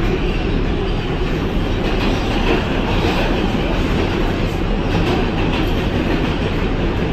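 New York City subway train running along the track: a steady, loud rumble and rattle of wheels on rail with no let-up.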